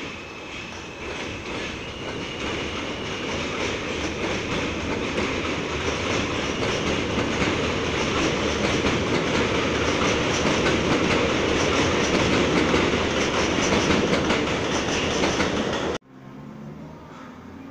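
New York City subway train pulling out on an elevated line and picking up speed. A faint electric motor whine rises at first, then the rumble and clatter of the wheels over the rail joints grows steadily louder until it stops abruptly near the end.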